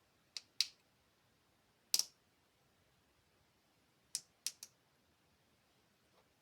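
Small plastic LEGO pieces clicking and tapping as they are handled during building: six sharp clicks in three small groups.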